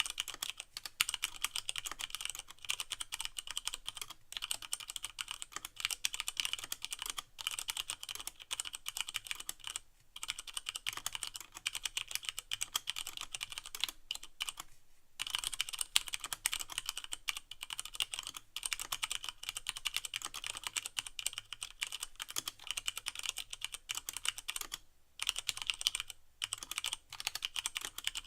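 Fast, continuous typing on a Leopold FC660M mechanical keyboard with Cherry MX Brown switches and no O-rings, the keycaps bottoming out with clacky clicks. There are a few short pauses, the longest about fifteen seconds in.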